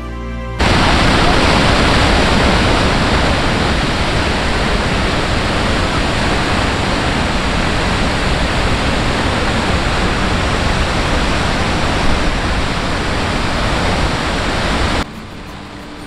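Waterfall's falling water: a loud, even rushing noise that cuts in suddenly about half a second in and stops abruptly about a second before the end.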